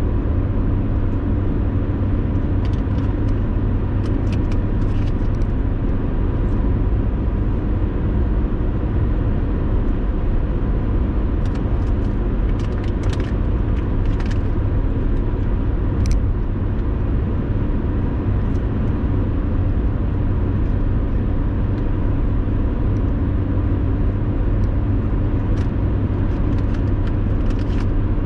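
Car driving at a steady pace: a constant low rumble of engine and tyres on the road, with a faint steady hum and scattered light clicks.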